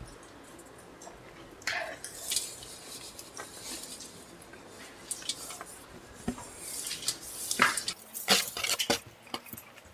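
Cutlery clinking and scraping against plates as Maggi noodles are eaten: quiet, scattered clinks, coming more often in the last three seconds.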